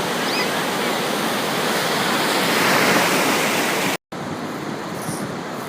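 Steady rushing water, surf or a waterfall, breaks off sharply at a cut about four seconds in, followed by quieter water and wind noise.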